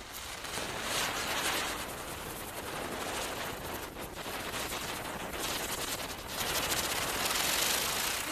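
Chakri ground spinner and anar fountain fireworks burning: a dense, rapid crackling hiss of sparks that grows louder.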